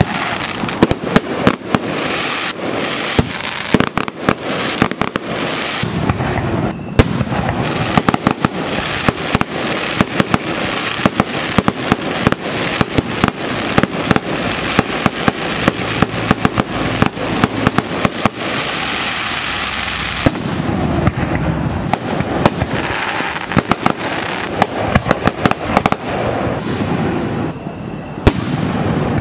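Aerial fireworks going off in quick succession: many sharp bangs from bursting shells over continuous crackling.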